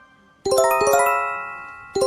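Quick run of bright electronic chime notes, bell-like, that ring on and fade, coming in about half a second in and starting over right at the end: the alert chime of a fan-made EAS alarm.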